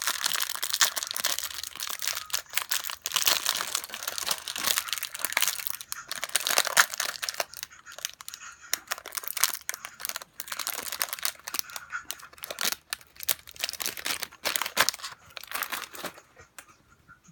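Plastic wrapping on a trading-card hobby box or its packs being crinkled and torn open, a dense crackling that thins out and fades near the end.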